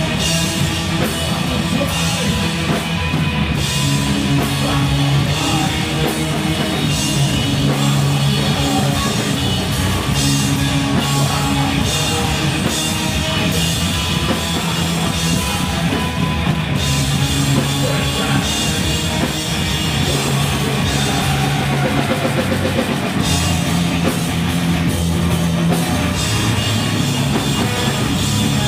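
A stoner-rock band playing live and loud: electric guitar and bass holding heavy low notes over a full drum kit, without a break.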